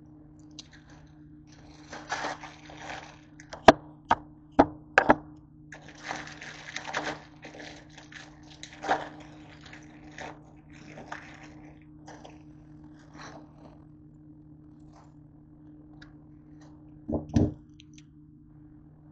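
Plastic instant-ramen packets crinkling as they are handled and opened, with several sharp clicks and knocks and a quick double knock near the end, over a steady low hum.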